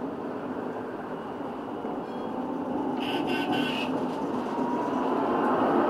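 Munich R2.2 low-floor tram running along the track, heard from the driver's cab, its running noise growing steadily louder. A brief high ringing sound comes about three seconds in.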